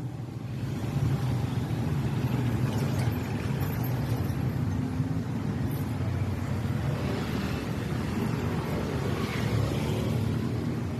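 Street traffic: motorcycle and other vehicle engines running steadily as they pass close by.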